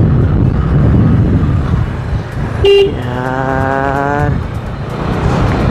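Steady rumble of wind and road noise from a scooter in city traffic, picked up on a helmet-mounted microphone. About halfway through comes a short, loud vehicle horn toot, followed at once by a longer, slightly wavering pitched tone lasting just over a second.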